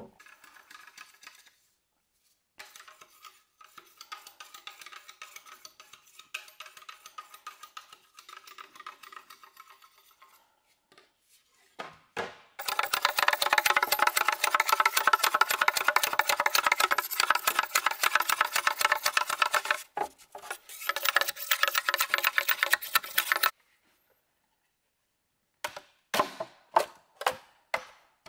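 A knife scraping rapidly along a green bamboo pole, a fast rasping stream of strokes with a ringing note from the hollow stem, much louder from about halfway and stopping abruptly. Near the end, a hatchet chopping into a bamboo pole, sharp knocks about two a second.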